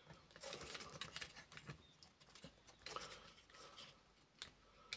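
Faint scratching and small irregular clicks of a model locomotive wheel being pushed and twisted onto its axle by hand.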